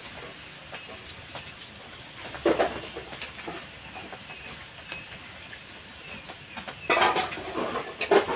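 Krupuk crackers frying in hot oil in a wok over a wood fire: a steady sizzle with scattered crackles and clinks of the metal strainer against the wok, louder about two and a half seconds in and again near the end.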